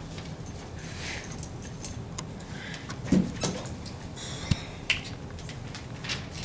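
Paper handled and rustled, with scattered small clicks, over a steady low hum. About three seconds in comes a short soft thump as a bag is set down on the floor, and there are two sharp clicks a little later.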